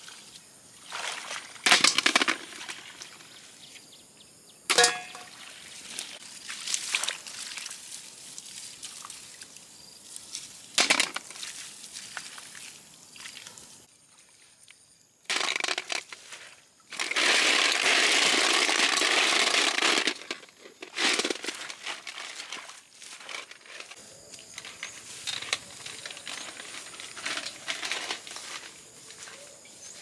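Hands rummaging through water hyacinth in a shallow pond, rustling and splashing, with sharp clatters of snails dropped into a metal bowl, one of which rings briefly. About two-thirds of the way through, a loud steady rush of noise lasts about three seconds.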